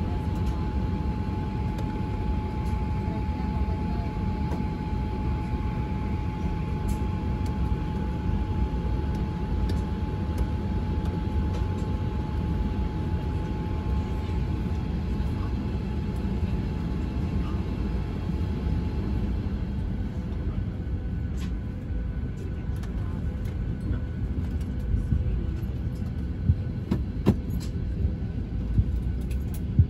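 Cabin noise of a Boeing 737-900 taxiing, its CFM56 turbofans at idle: a steady low rumble, with a thin steady tone that fades about halfway through and a few sharp clicks near the end.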